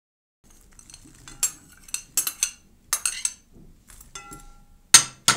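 Metal spoon scraping and clinking against glass bowls as frozen peas are scooped out and tipped into a larger glass bowl. About four seconds in, one tap leaves a short glass ring, and a sharp clink near the end is the loudest.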